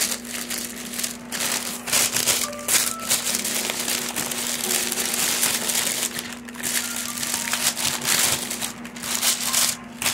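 Sheet of paper crinkling and rustling as gloved hands fold and roll a lettuce wrap up in it, with a steady low hum underneath.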